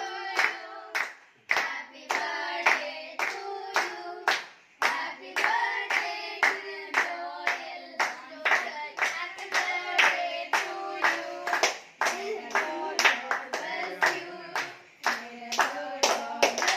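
A small group singing a birthday song together with steady rhythmic hand-clapping, about two to three claps a second.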